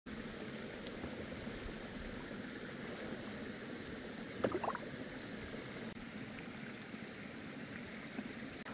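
Small waterfall and shallow stream water running steadily, with a short splash about four and a half seconds in as a smallmouth bass is let go into the water beside the kayak.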